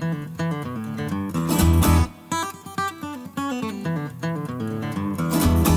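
Background music: a plucked acoustic guitar playing a melody of short notes.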